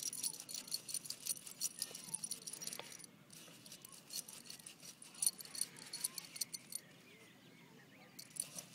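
Metal collar tags on a Yorkshire terrier jingling in quick, irregular runs as she digs in sand, with the scratch of her paws in the sand. The jingling breaks off briefly about three seconds in and thins out near the end.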